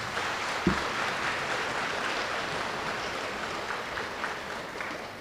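Audience applause, a steady patter of many hands clapping that fades away near the end, with a dull low thump just under a second in.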